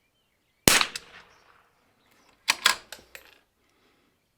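A single .22 LR rifle shot under a second in, ringing off over about a second, followed about two seconds later by a quick run of metallic clicks from the bolt-action rifle's bolt being worked.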